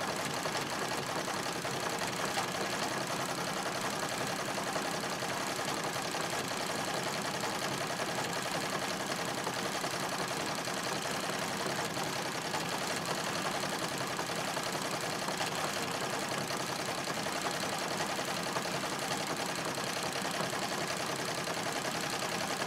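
Treadle-driven Singer 66 sewing machine stitching steadily at speed during free-motion quilting, a fast, even clatter of needle and mechanism without a pause.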